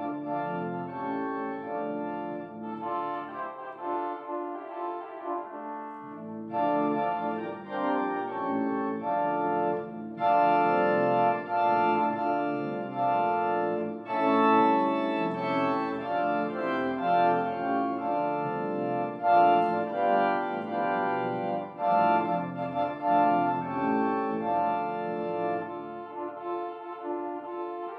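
Organ playing sustained chords, growing fuller and louder about ten seconds in.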